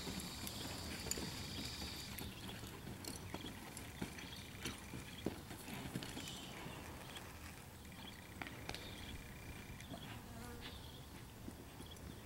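Faint buzzing of insects, coming and going as thin high tones, with a few scattered soft knocks.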